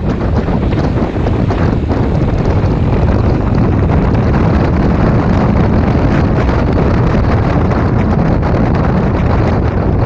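Wind rushing and buffeting over the microphone of a camera on a moving maxi-scooter, a steady loud noise heaviest in the low end, while riding at about 40 to 60 km/h.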